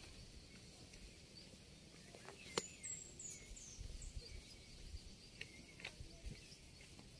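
Faint outdoor ambience in hill forest, with a few short high bird chirps about three seconds in and a single click just before them.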